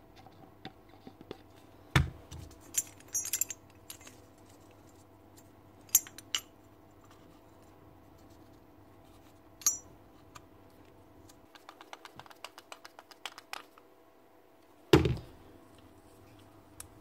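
Small metal and plastic drill-gearbox parts clicking and clinking together as gears and a fan assembly are fitted by hand into a Bosch 36-volt SDS drill's housing. There are two dull knocks, about two seconds in and near the end, and a run of quick light ticks shortly before the second knock.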